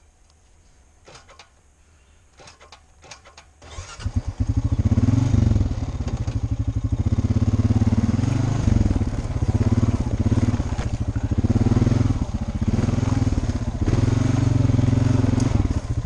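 ATV engine starting after a few faint clicks, about four seconds in, then running loudly with its engine speed rising and falling as the quad is ridden.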